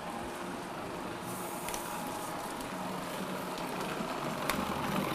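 Steady noise from stainless pots heating on lit gas burners, with one sharp click about four and a half seconds in.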